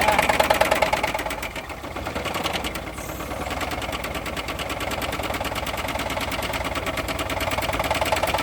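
Chevy HHR's four-cylinder engine idling with a fast, even knock from a bad rod bearing, which is barely knocking at the moment. It is louder for the first second or so, dips briefly, then runs steady.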